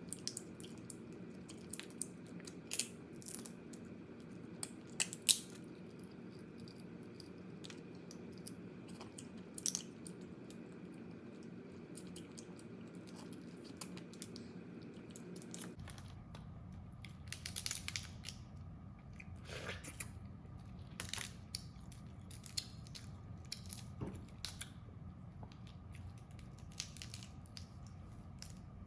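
Crab being eaten: scattered sharp cracks and crunches of shell being bitten and torn, with chewing. Under them runs a steady low background hum that changes abruptly a little past halfway.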